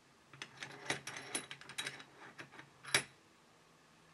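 Handling clicks and rattles of a Bessey tabletop vise being loosened by hand and a microphone capsule taken out of its jaws, a quick run of light metal clicks ending in one sharper click about three seconds in.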